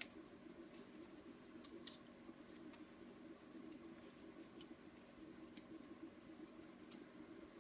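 Near silence: a steady low hum of room tone with faint, scattered small clicks and ticks.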